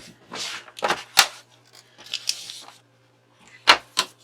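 Craft supplies handled on a tabletop: a few sharp clicks and taps, the loudest two close together near the end, with brief rustling between them.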